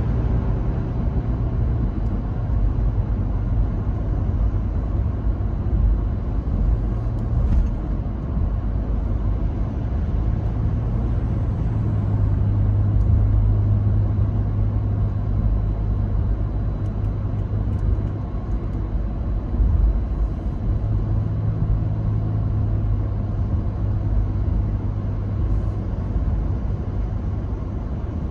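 Car driving at road speed: a steady low rumble of engine and tyre noise heard from inside the cabin, with a low engine hum that shifts slightly in pitch now and then.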